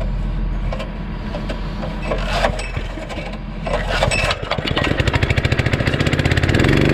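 Honda small engine on a seed nurse trailer being pull-started on a frayed recoil starter rope that is barely hanging on. It catches a little over four seconds in with an even, pulsing beat that speeds up and settles into a steady run near the end.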